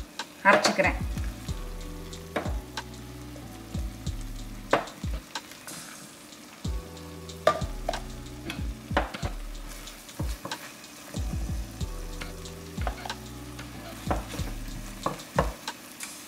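A spatula scraping and knocking against a stainless steel pot as sautéed onion-tomato masala is scooped out into a mixer jar, with the hot mixture sizzling underneath. The knocks and scrapes come irregularly, a dozen or more times.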